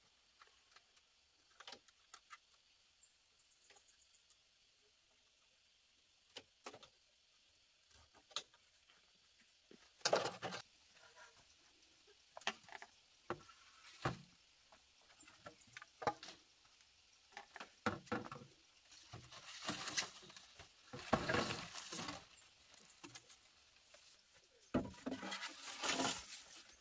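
Bamboo poles being handled during frame building: scattered hollow knocks and taps, with longer bouts of scraping and rustling about ten seconds in, around twenty seconds in, and near the end.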